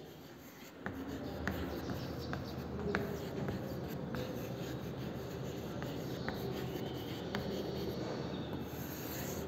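Chalk writing on a chalkboard: a scratching stroke sound with sharp little taps as the chalk meets the board, starting about a second in.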